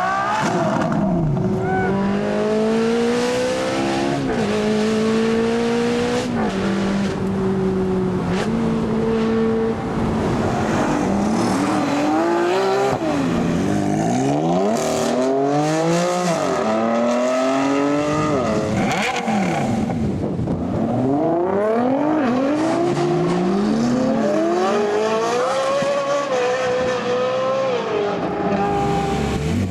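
A high-performance car engine accelerating hard again and again, its pitch climbing and then dropping back at each gear change.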